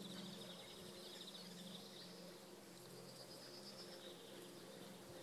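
Faint outdoor ambience: a high, rapid trill that comes and goes over a steady low hum.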